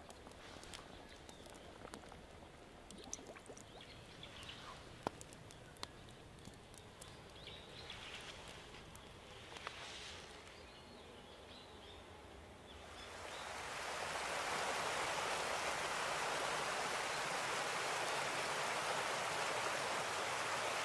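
A few sparse small clicks and crackles over a quiet outdoor background, then about thirteen seconds in the steady rush of a flowing stream fades up and holds.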